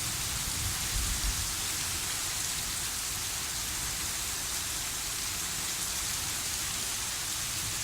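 Heavy thunderstorm rain falling steadily, an even hiss, with a brief low rumble about a second in.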